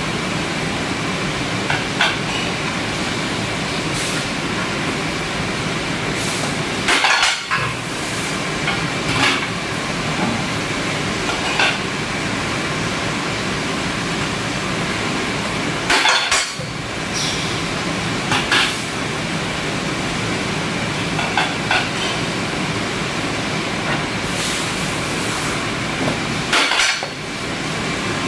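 Steady, loud machinery noise with a series of sharp knocks and clinks from tempered glass lids being handled and struck on a drop-impact test rig. The three loudest knocks come about 7, 16 and 27 seconds in.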